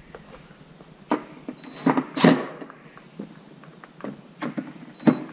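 DeWalt cordless drill-driver snugging up Torx screws into the door frame: a few short runs with sharp clicks and knocks, the loudest about two seconds in.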